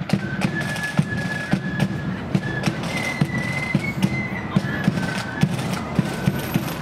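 Marching flute band playing: flutes carry a melody of held notes over rattling side drums and a bass drum keeping a steady marching beat.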